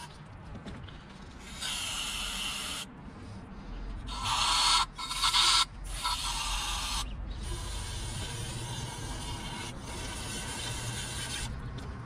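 Spray hissing in a series of bursts, one short, then a loudest stretch broken by brief gaps, then a long steady one, as hydraulic cylinder parts are sprayed clean.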